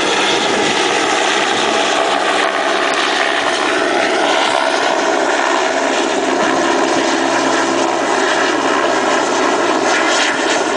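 Police helicopter flying low overhead: loud, steady rotor and engine noise.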